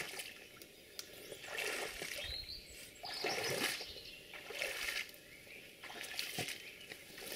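Rubber boots wading through shallow floodwater and wet grass: a series of irregular splashing, squelching steps about a second apart.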